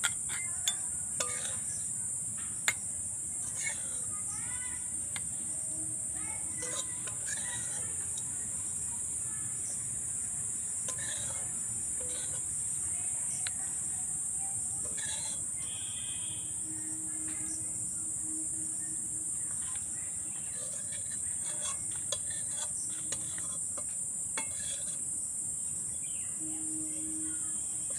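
A metal spatula scraping and clinking against a steel kadai and a small glass bowl as thick chutney is transferred, in short irregular clicks. Under it, a steady high insect chirring, like crickets, runs throughout.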